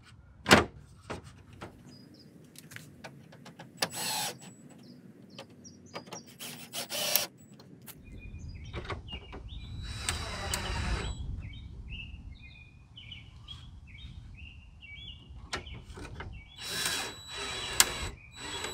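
Cordless drill driving screws to fasten a plastic grille to the front of a Jeep Grand Cherokee, in several short runs, the longest about ten seconds in. A sharp click about half a second in, with birds chirping faintly in the background.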